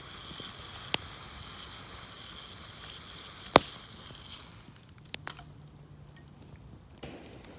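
Campfire hissing and crackling, with a sharp pop about a second in and a much louder pop about three and a half seconds in; the hiss dies down after about four and a half seconds, leaving a few small crackles.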